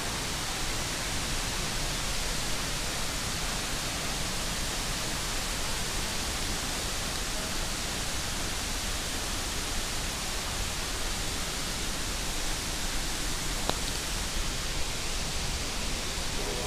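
Rushing water of a waterfall and its rocky stream, a steady, even hiss.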